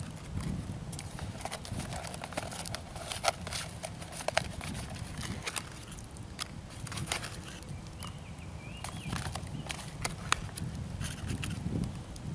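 A wood campfire crackling, with irregular sharp pops, over a low steady rumble, while a foil tuna pouch is squeezed and handled.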